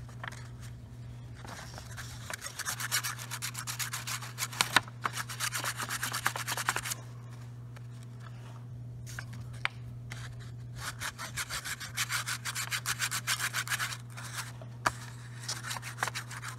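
Wax crayon rubbed quickly back and forth across a sheet of paper laid over an engine part, taking an imprint of its outline for a gasket. The scratchy strokes come in three spells, with short pauses between them.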